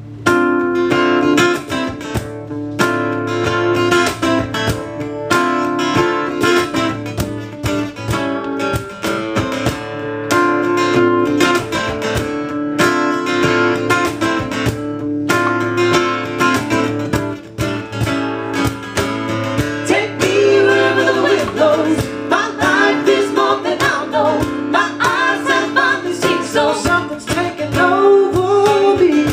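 Live acoustic band: acoustic guitars strumming a steady song intro, with singing coming in about two-thirds of the way through.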